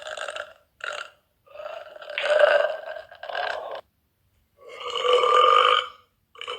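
A girl burping loudly several times: two short burps, then two long, drawn-out ones.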